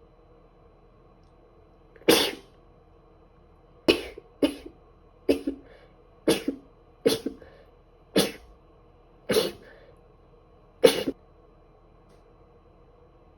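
A woman with a heavy cold sneezing in a fit: nine short, sharp sneezes roughly a second apart, starting about two seconds in, with the last one the loudest.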